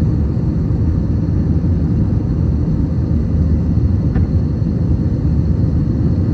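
Airbus A321 jet engines at takeoff power heard from inside the passenger cabin: a steady low rumble. A faint tick sounds about four seconds in.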